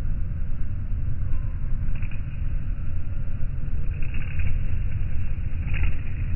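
A steady low rumble of outdoor noise. Brief faint hissing rustles come through about two, four and six seconds in.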